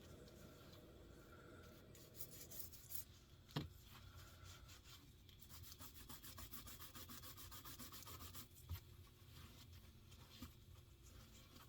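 Faint scrubbing of a brush on a grimy guitar pickup, in quick repeated strokes that come in two spells, with a single sharp tap a little past three seconds in.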